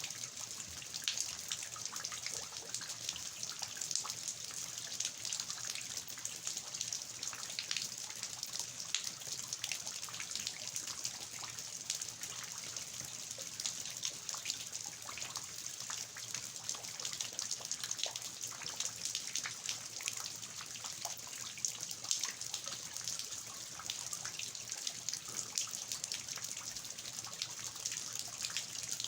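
Steady rain with water dripping and trickling from the eaves of a traditional house onto the garden: a continuous hiss dotted with many separate drop splashes.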